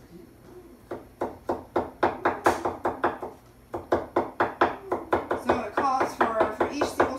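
Chef's knife rapidly chopping garlic cloves on a wooden cutting board, quick knocks about four a second, starting about a second in with a short pause about three and a half seconds in.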